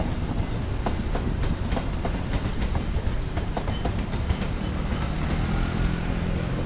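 Coaches of a KAI long-distance passenger train rolling past, with a steady rumble and repeated clicks as the wheels cross rail joints. A low steady hum comes in near the end.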